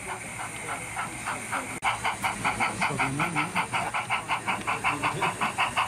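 Sound-fitted 00 gauge model steam locomotive chuffing: an even, fast beat of hissing exhaust puffs, about six a second, coming through the model's small speaker. The chuffing gets louder about two seconds in.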